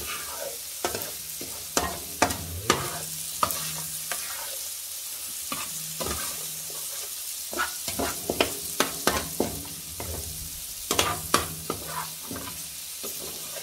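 A slotted metal spatula scraping and clicking against a steel paella pan as dry rice is fried and stirred in oil with cuttlefish and squid, over a steady sizzle. This is the stage of toasting the rice before liquid is added. The clicks come in clusters.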